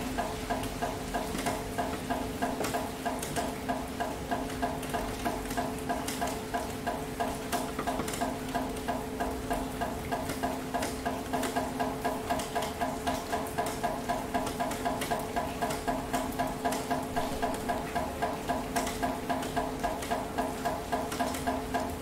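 Rain falling with scattered drips and a steady hiss, under a rhythmic chirring of about four pulses a second.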